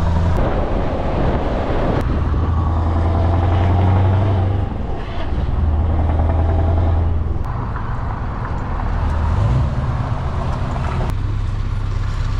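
Scania lorry's diesel engine droning, heard from inside the cab. Its note shifts abruptly several times, at sharp clicks, as stretches of driving follow one another.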